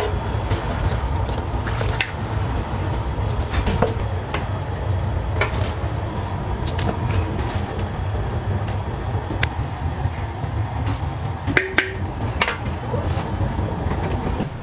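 Kitchen noise: a steady low rumble with scattered sharp clinks and knocks of metal utensils against a large aluminium cooking pot.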